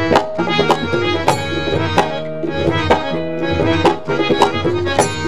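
Instrumental interlude of Indian devotional music: tabla strokes recurring over sustained melodic accompaniment, with held tones underneath.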